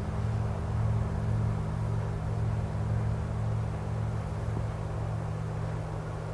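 Large hanging gong ringing out after a strike, its low hum fading slowly with a steady wavering beat about twice a second.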